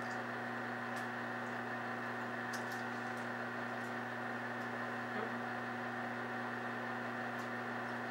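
Steady electrical hum with a hiss behind it, holding at one level throughout, with a few faint soft clicks.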